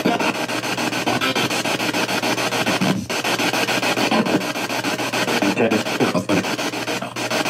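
Spirit box radio scanning rapidly through stations: a loud, continuous hiss of static chopped with brief fragments of broadcast voices, which the session takes for spirit voices, and a few short dropouts.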